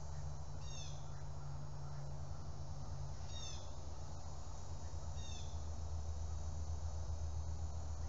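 Three short, high, falling animal calls, about two seconds apart, over a steady low hum.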